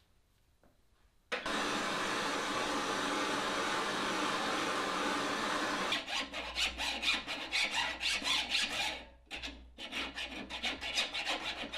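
A steady hiss starts abruptly, runs for about four and a half seconds and cuts off. Then a flat file rasps in quick back-and-forth strokes across the jaws of farrier's hoof nippers clamped in a vise, sharpening the cutting edges, with a short pause partway through.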